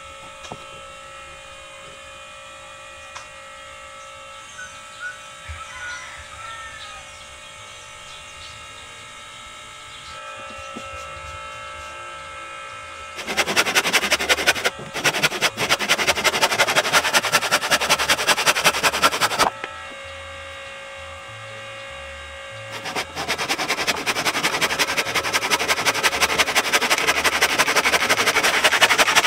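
Handheld power tool working the wood, run twice for about six seconds each with a loud, rapid buzzing stroke. Before and between the runs there is a quieter steady hum.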